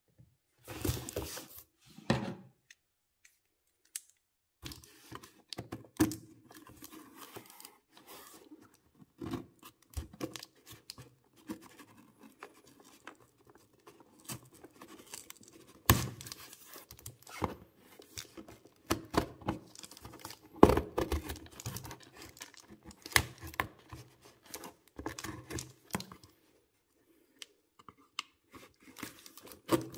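Packing tape on a cardboard box being cut and slit with scissors, the blade drawn along the taped seam: irregular scraping, crackling and tearing of the tape, with a few knocks on the box, two short thuds near the start.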